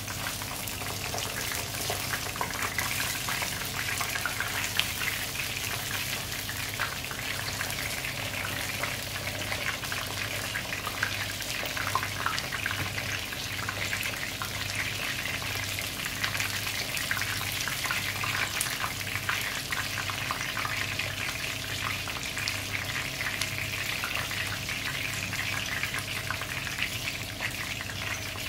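Breaded hammour fish fillets shallow-frying in hot oil in a frying pan: a steady crackling sizzle full of small pops.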